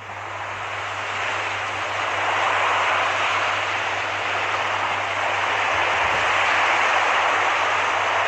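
Steady rushing noise with a constant low hum underneath, swelling in over the first two seconds and then holding level.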